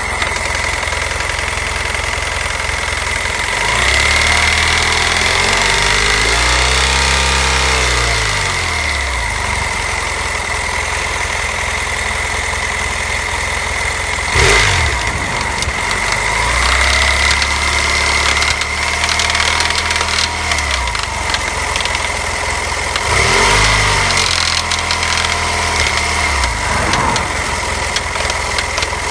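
2010 BMW F650GS 798 cc parallel-twin engine running with a bad mechanical noise and a steady high whine, revved up and back down three times with a quick blip about halfway. The owner suspects a loose valve from a broken valve guide or loosened bolts.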